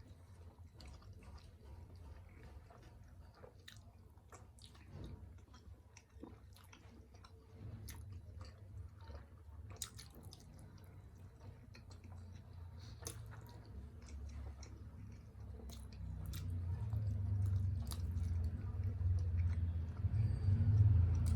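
Close-miked chewing of steamed chicken momo dumplings: wet, squishy mouth sounds with scattered sharp clicks and smacks. A low rumble underneath grows louder over the last few seconds.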